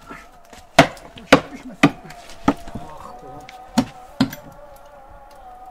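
Sharp knocks of wood on wood as rough wooden planks are handled and set in place, about six knocks at uneven intervals.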